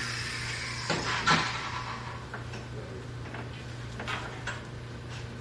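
A few sharp knocks and clatters, the loudest about a second in, over a steady low hum.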